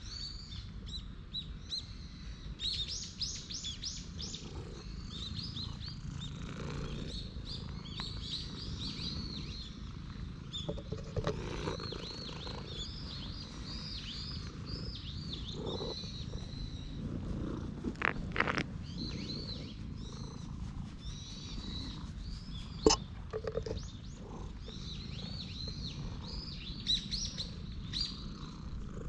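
Small birds chirping and singing throughout, over a steady low rumble, with a few sharp knocks, the loudest about two-thirds of the way through.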